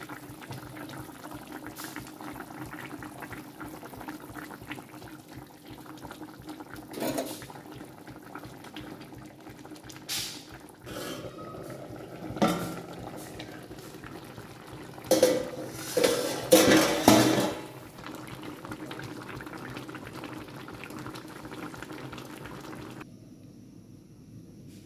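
Bottle gourd and egg curry simmering and bubbling in a metal pan, with a run of metal clanks from the pan, its lid and a utensil through the middle, loudest about two-thirds of the way in.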